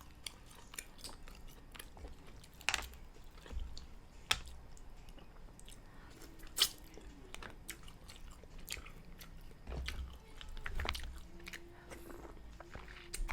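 A person chewing and lip-smacking mussels close to the microphone, with irregular wet clicks and smacks, a few of them louder.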